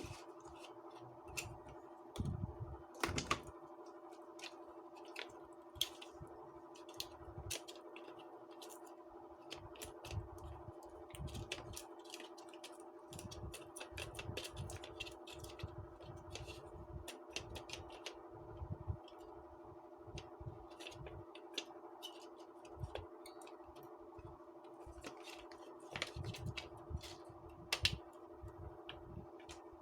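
Irregular light clicks, taps and knocks of small hard parts being handled, a few per second, over a steady electrical hum.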